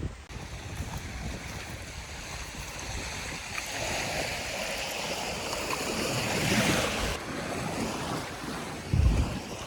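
Small lake waves washing onto the shore, a rush of water that builds for a few seconds and then drops away, with wind buffeting the microphone.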